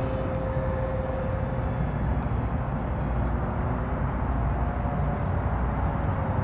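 Phase 3 F-16 electric ducted-fan RC jet with a five-blade fan flying at a distance: a faint whine that slowly falls in pitch, then rises and falls again about five seconds in, over a steady low rumble that is the loudest sound.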